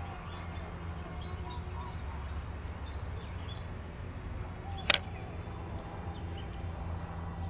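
Outdoor ambience: a low steady rumble with small birds chirping faintly, and one sharp click about five seconds in.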